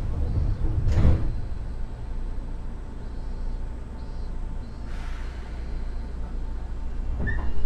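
Inside a standing Seibu 2000-series train car: a low rumble that stops with a knock about a second in, then a short hiss of air about five seconds in and a click near the end.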